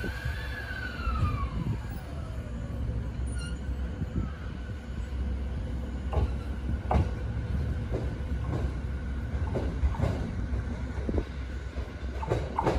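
E217 series electric train pulling away and accelerating: its inverter and traction motors give a whine that rises, then glides down and fades as the train draws off, over a steady low rumble of wheels on rail. In the second half come a series of short, sharp wheel squeals and clicks.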